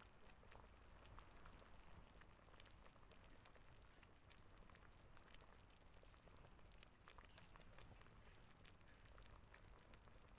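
Near silence with faint, irregular ticks and patter.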